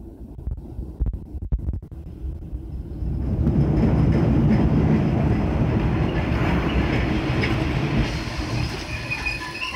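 MBTA Red Line subway train running along the platform: a low rumble with a few knocks at first, then about three seconds in the rumble and wheel clatter grow much louder and stay loud.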